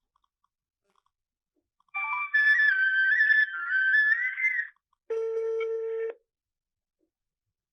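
A short flute-like phone tune, a few notes wavering up and down for nearly three seconds, then a single steady electronic beep lasting about a second.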